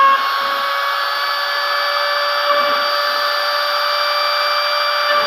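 CNC router spindle running steadily at high speed while its small engraving bit cuts a logo into a flat sheet: a whine of several steady tones over a hiss, with a higher tone joining about a second in.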